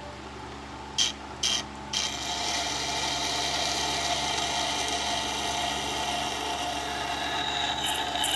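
Wet sharpening system's motor humming steadily while a scissor blade, clamped in a scissor jig, is ground against the turning sharpening stone: three short scrapes about a second in as the blade meets the stone, then a steady grinding rasp.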